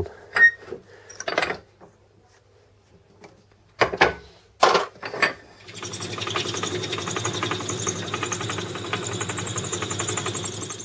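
A few knocks and clatter from the lathe being handled, then about six seconds in the Record Power CL3 lathe starts and runs steadily with a constant high whine and a low hum, its tailstock twist drill boring an 8 mm hole through a spinning piece of metal.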